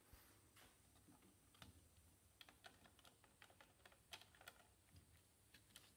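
Faint, irregular light clicks and taps of fingers handling a drill press's clear plastic chuck guard.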